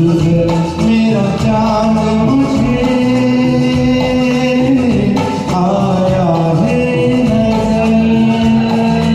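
Music of a Hindi film song: a melodic line of sustained, gliding notes over a steady accompaniment.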